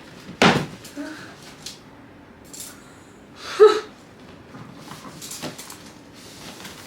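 A sharp knock about half a second in, then quieter handling clicks and rustling, with a short vocal sound near the middle.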